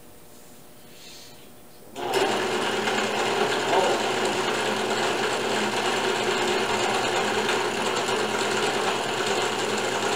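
Benchtop drill press running: a steady motor whir that comes in abruptly about two seconds in as the bit bores dowel-pin holes into a wooden corner block.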